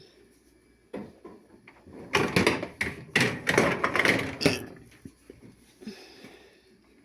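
Dishwasher rack sliding along its rails, rattling and knocking for a couple of seconds and ending in a sharp knock.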